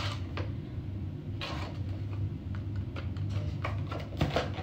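Cardboard product box being handled and slid open by hand: scattered light scrapes and taps, over a low steady hum.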